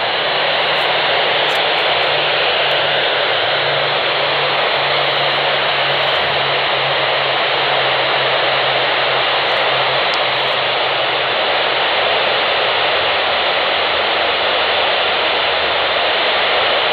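Steady loud hiss of an FM radio receiver tuned to the AO-91 (Fox-1B) satellite's 145.96 MHz downlink, open squelch with no voice coming through. A faint low hum runs beneath it and fades out in the second half.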